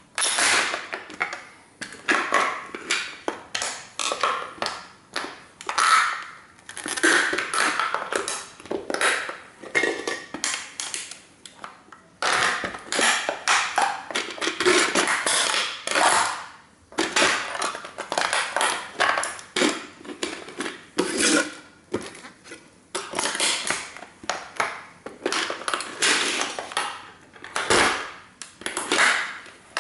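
A 1:18 model toy car being stomped and crushed under Nike Air Max 95 sneakers: dense cracking, crunching and clinking of its plastic and metal parts, coming in bursts with brief pauses between stomps.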